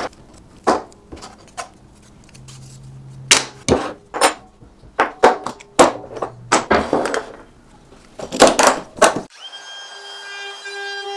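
Wood, clamps and tools being handled and set down on a wooden workbench: a string of sharp knocks and clatters. Near the end, a DeWalt 20V XR compact cordless router cuts in abruptly, running with a steady high-pitched whine.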